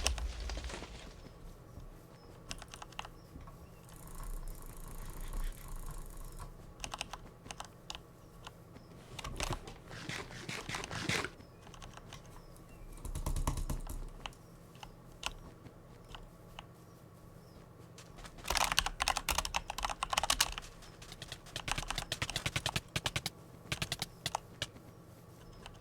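A cheap butterfly clicker being clicked by hand: scattered single clicks and short clusters, then two fast runs of rapid clicking over the last third.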